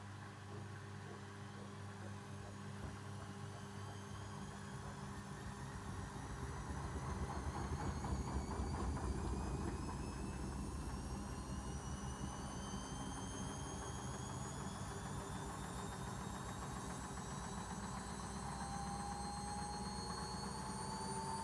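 Arçelik washing machine with a rug in the drum, its drum speeding up: the motor whine climbs steadily in pitch. A low rumble swells from about six seconds in, then settles into a steady hum.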